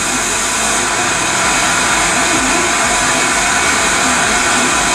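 Loud, steady static hiss from the speaker of an amplifier on the repair bench, with no programme playing.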